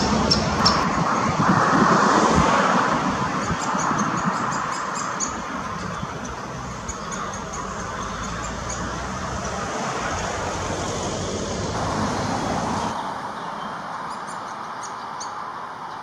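Steady background noise of road traffic, with groups of short, high-pitched bird calls over it.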